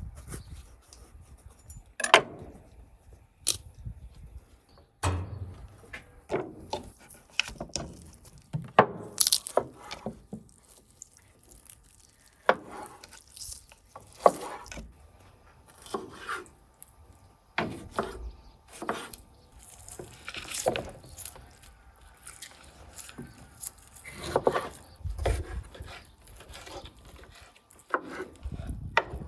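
Kitchen knife cutting on wooden cutting boards, slicing a bell pepper and then chopping cooked chicken, in irregular sharp knocks of the blade striking the board, with softer rubbing as the meat is handled.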